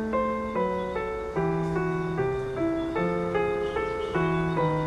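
Background piano music: a calm piece with a new note or chord about every half second over a held bass line.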